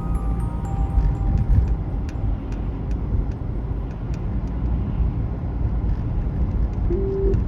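Car driving on a road: a steady low rumble of road and engine noise.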